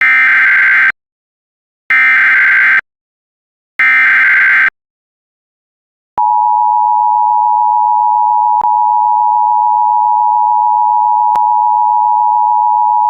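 Emergency Alert System opening: three one-second bursts of SAME header data, a buzzy digital screech, then after a short pause the steady two-tone EAS attention signal (853 and 960 Hz) starts about six seconds in and holds.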